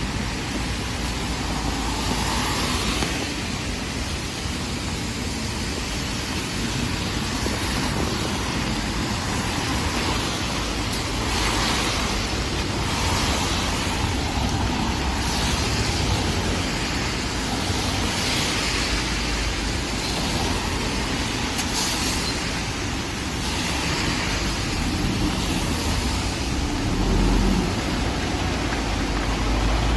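Road traffic on a wet street in the rain: a steady low engine rumble under tyre hiss from the wet road, which swells several times as vehicles pass. A city bus's engine runs close by at the stop.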